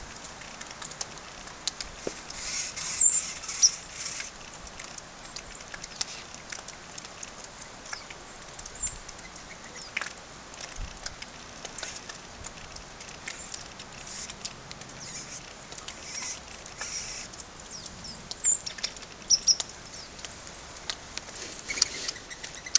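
Small birds at a winter feeding spot: a busy patter of soft clicks and taps with scattered short, high chirps. The chirps are loudest about three seconds in and again around eighteen to twenty seconds.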